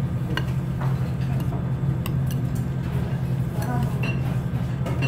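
Metal chopsticks clicking and scraping against a ceramic bowl as noodles are mixed, in scattered light taps over a steady low hum.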